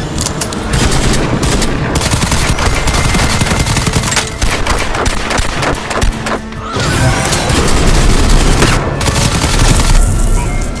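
Rapid gunfire sound effects over a dramatic film music score, dense volleys of shots throughout.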